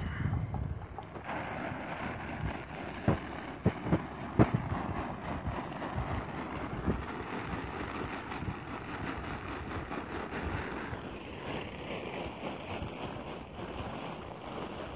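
Wind buffeting the microphone, a steady noise, with a few short knocks about three to four and a half seconds in.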